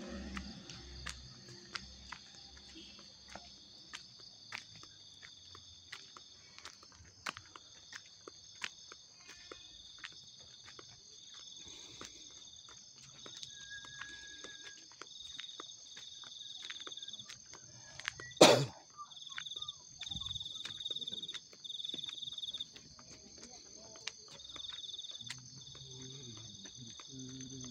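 Crickets and other night insects chirping steadily, one of them trilling in on-and-off spurts through the second half, over light clicking footsteps. A single loud thump comes about two thirds of the way through.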